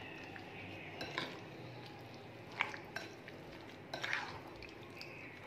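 Metal spoon stirring chicken pieces into a thick yogurt-and-spice marinade in a glass bowl, faint, with a few short clinks and scrapes of the spoon against the bowl about a second in, in the middle and around four seconds in.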